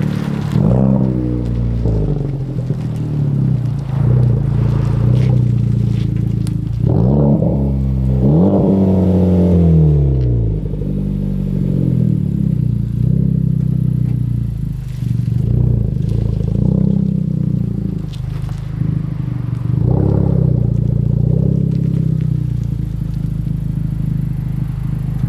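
Honda Civic Type R FK8's turbocharged four-cylinder heard from outside through a Greddy DDR resonated exhaust, revved up and let fall back several times, with a steady deep exhaust note between the revs.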